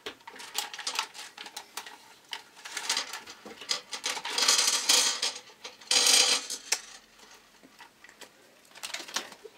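Small candies poured from plastic snack packets rattle and click into a stainless steel pot, along with crinkling of the wrappers. Scattered clicks give way to two louder rushes of rattling about halfway through.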